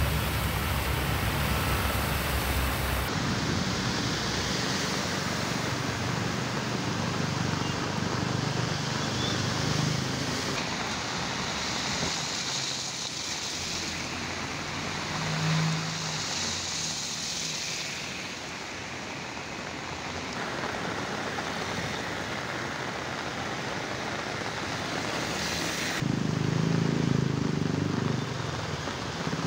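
Vehicles driving through floodwater on a road: engines running and tyres splashing under a steady hiss of rushing water. The mix changes abruptly several times.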